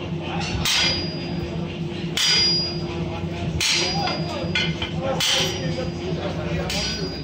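Hammer striking a handled top tool held against red-hot steel on an anvil: five blows about a second and a half apart, each with a brief high ring, over a steady low hum.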